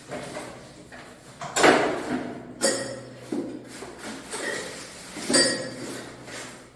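A series of sharp metallic knocks and clinks, about five or six, some with a brief ring, as metal parts and tools are handled during air-conditioner installation work.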